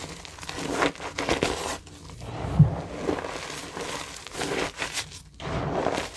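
Reformed gym chalk bars being squeezed and crumbled by gloved hands in a bed of loose chalk powder: irregular crunching and crackling as the blocks break and the powder packs, with a dull thump about two and a half seconds in.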